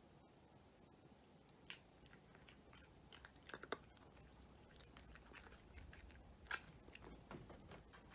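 A cat crunching dry kibble, with irregular crisp crunches that begin after a quiet second or so. The loudest crunches come about midway and again a little later.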